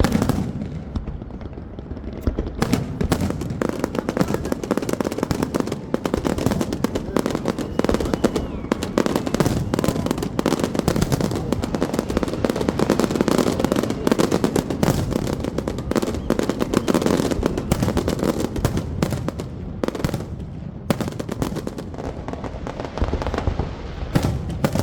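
A large fireworks display going off in a dense, continuous barrage of rapid crackling bangs like machine-gun fire. It eases briefly near the end before a last few bursts.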